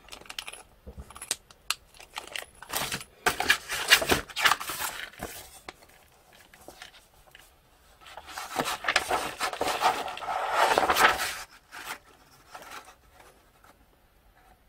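Crinkling of a clear plastic bag holding the kit's rubber tyres and rustling of the paper instruction sheet as it is handled and turned. The noise comes in two spells, a short one a few seconds in and a longer one around the middle, with small clicks between.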